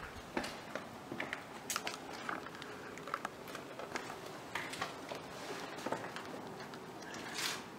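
Footsteps crunching on a debris-covered floor: scattered faint clicks and crackles at an uneven pace, with a short hiss near the end.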